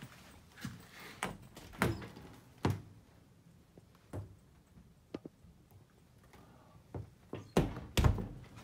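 Wooden doors and shutters being handled, giving a run of irregular knocks and thuds, with the loudest pair of thuds near the end.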